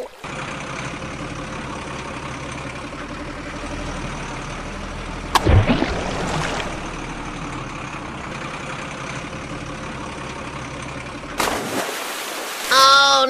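Steady engine running sound, like a truck idling, with a single sharp knock and a short spell of splashy noise about five and a half seconds in.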